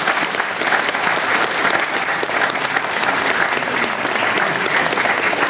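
Audience applauding, with steady, dense clapping.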